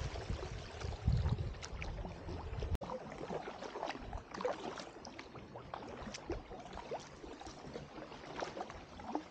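Kayak paddle strokes: the blades dip into the river and water drips and trickles off them in many small splashes and plinks. There is a low rumble in the first second or so, and a brief break about three seconds in.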